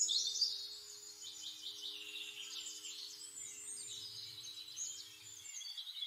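Birds chirping and twittering: many short, high calls overlapping without a break. A faint steady drone of low tones runs underneath and stops near the end.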